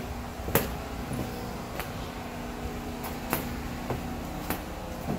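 Scattered sharp clicks and light knocks, about five in all and irregularly spaced, over a faint steady hum in a bare room.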